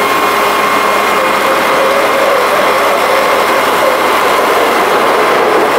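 An H1 Unlimited hydroplane's turbine engine running: a steady whine over a constant rushing noise.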